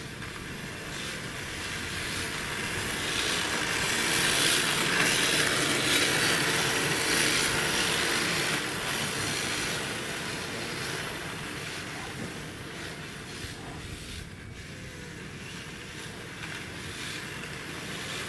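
RC drift cars sliding on asphalt: a steady hiss of hard plastic tyres scrubbing sideways, swelling as a car passes close about four to eight seconds in, then fading.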